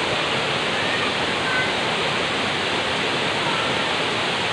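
River water rushing steadily over rocks, a constant full hiss with no breaks.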